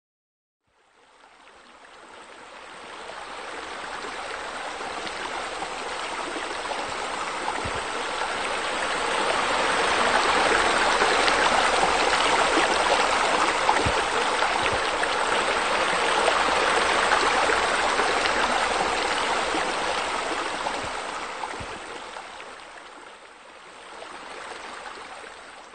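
Running water splashing steadily. It fades in over the first few seconds, is loudest in the middle, and fades out near the end.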